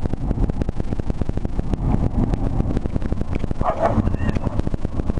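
Ibizan Hound mix barking, most clearly once about three and a half seconds in, over a rapid pitter-patter and low rumble that the uploader takes for wind whipping through the open windows of the moving car.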